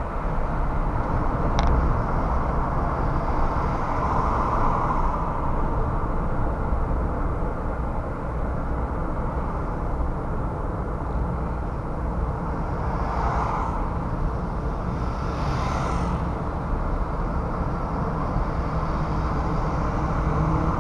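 Steady low rumble of a car driving in city traffic, engine and tyre noise together. Other vehicles swell past a few seconds in and again about two-thirds through.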